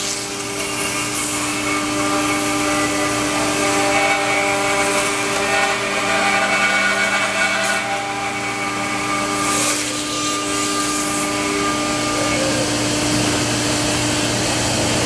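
ShopBot CNC router spindle running with a steady whine while its bit mills along the edge of a thick wood slab, jointing it, over the rushing noise of the cut. The cutting noise swells briefly about eight and ten seconds in.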